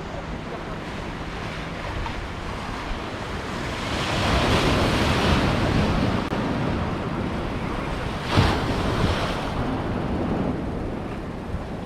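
Mediterranean surf breaking on the shore, with a surge of waves building about four seconds in and a sharper crash a little after eight seconds. Wind on the microphone adds a low rumble.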